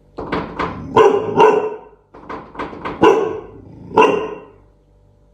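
Cane Corso barking in irregular bursts of short, loud barks, about ten in all, fading out after about four seconds: alarm barking at strangers.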